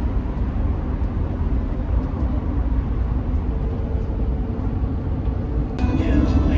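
Steady low road rumble of a moving vehicle, even throughout, with a faint steady hum in the middle; another, brighter sound joins near the end.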